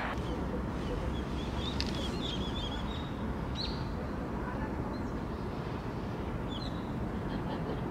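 Outdoor ambience: a steady low rumble of background noise, with small birds chirping briefly now and then.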